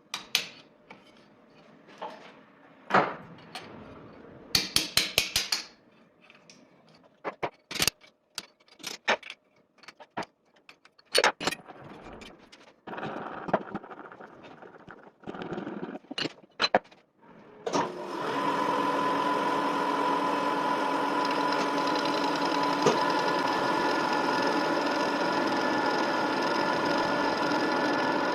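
A run of scattered clicks and knocks, as of tools and parts being handled at a workbench. About two-thirds of the way through, a lathe starts and runs steadily with a constant hum and whine.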